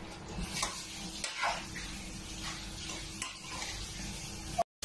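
Oil heating in an open pressure-cooker pot on a gas burner: a few faint pops and clicks over a steady low hum.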